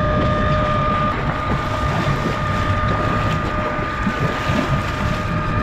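Boat engine running with a steady low rumble and a steady whine over it, with wind buffeting the microphone.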